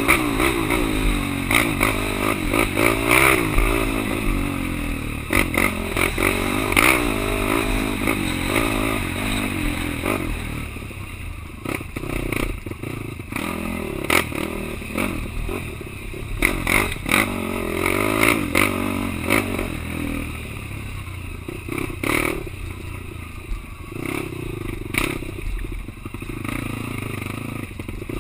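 Quad (ATV) engine running and revving up and down, with frequent knocks and clatter as the machine rides over rough ground. The engine drops back somewhat about ten seconds in.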